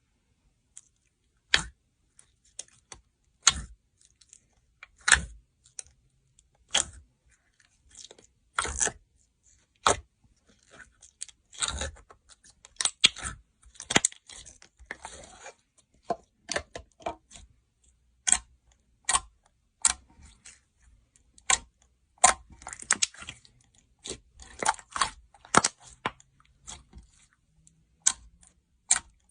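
Slime being pressed and squeezed, giving sharp clicking and crackling pops. The pops come about one every second and a half at first, then thicker and more irregular from about a third of the way in.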